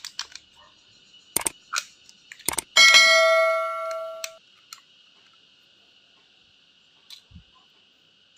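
Clicks and knocks of a cordless drill being handled, then, about three seconds in, a metal object is struck and rings with a bell-like clang that fades over about a second and a half. The drill's motor is not running.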